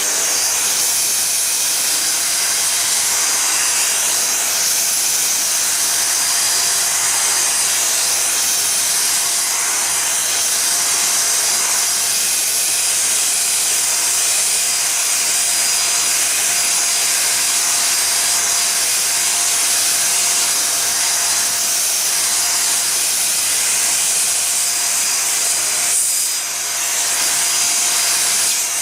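Midea MVC-SC861B corded stick vacuum cleaner running, a loud steady hiss with a steady whine in it, sucking dust off a book. Near the end the sound briefly drops and then recovers.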